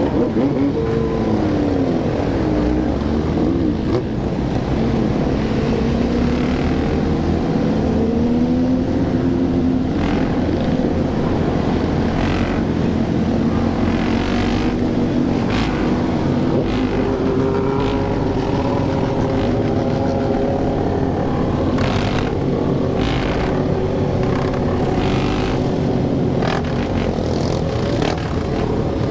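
Many motorcycle engines running together, revving so that their pitches rise and fall over one another, with scattered short sharp noises through the din.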